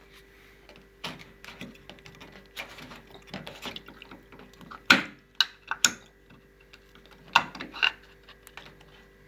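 Clicks, scrapes and knocks of a washing machine's plastic drain-pump filter being turned and worked loose by hand, with water draining from the opening. The sharpest knocks come in the second half.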